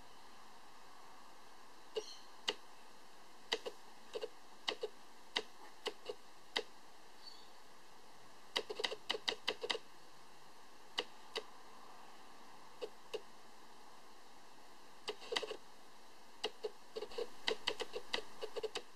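Irregular sharp clicks and taps, some single and some in quick runs of several a second, over a faint steady hiss.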